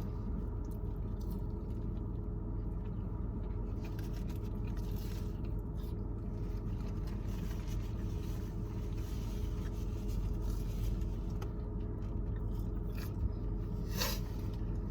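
Steady low hum of a car engine idling, heard inside the cabin, with small scattered rustles and clicks of eating and a brief louder rustle near the end.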